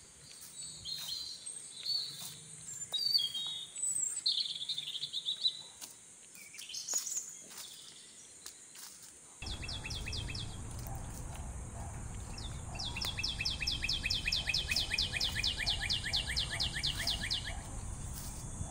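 Wild birds calling with assorted short chirps and whistles. About halfway a low steady rumble comes in, and a rapid, evenly pulsed trill of about seven notes a second repeats for several seconds.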